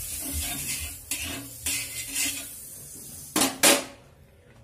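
Butter sizzling on a hot iron tawa while a flat metal spatula scrapes across the pan, spreading the melted butter. About three and a half seconds in come two loud strokes of the spatula on the tawa.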